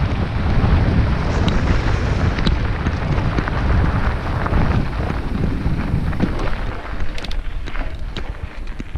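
Wind buffeting the microphone and tyres rumbling over a dirt trail as a mountain bike rides downhill, with scattered clicks and rattles from the bike. The rush quietens about seven seconds in.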